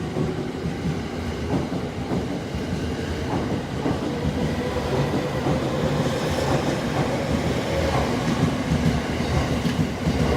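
JR 209 series 500 electric commuter train pulling out of a station, wheels rumbling and clacking over rail joints as the motor whine rises slowly with speed.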